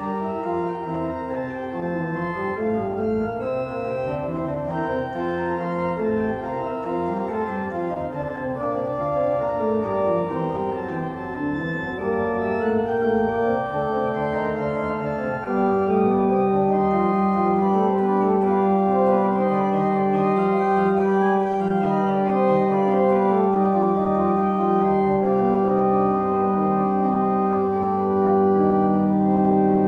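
Organ music: busy moving lines of notes, with a long-held low note entering about halfway through beneath them and the music growing louder.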